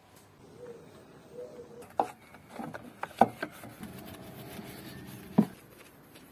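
A small detailing brush scrubbing soapy foam over a car's painted body panels, a soft rubbing sound broken by four sharp taps: one about two seconds in, two close together just after three seconds, and one about five and a half seconds in.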